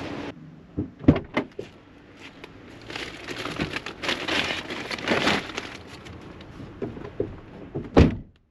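Shopping bags being loaded onto a car's back seat: a few sharp knocks, then plastic bags rustling for a couple of seconds, and a heavy thud near the end.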